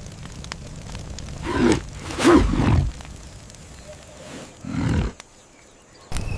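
Three rough, pitch-bending calls from a large animal, the middle one the loudest and longest, over a low steady background with faint clicks. Everything drops almost silent briefly near the end.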